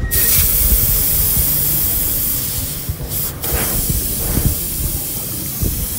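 Leftover refrigerant hissing out of a water dispenser's compressor line as the access valve line is opened. The hiss starts suddenly, loud, and slowly weakens; refrigerant still in the system, the sign that it has not leaked.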